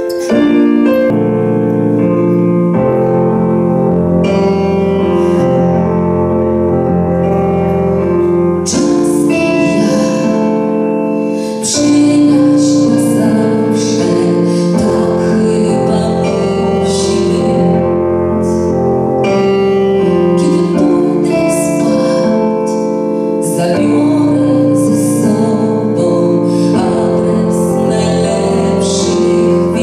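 A woman singing into a microphone over a piano accompaniment.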